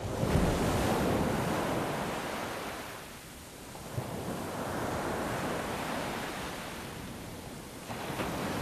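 Ocean surf: waves washing in and drawing back as a steady rush, swelling and easing off twice.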